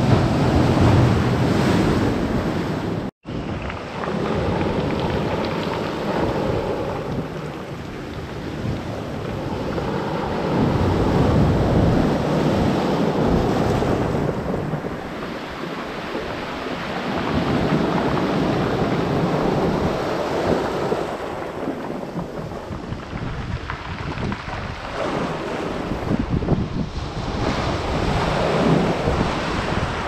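Surf from a rough sea breaking and washing up a pebble beach, swelling and ebbing every several seconds, with wind buffeting the microphone. The sound cuts out for an instant about three seconds in.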